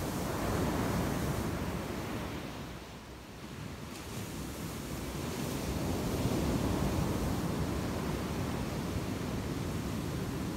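Ocean surf breaking on a beach: a steady wash that eases about three seconds in, then swells again from about five seconds.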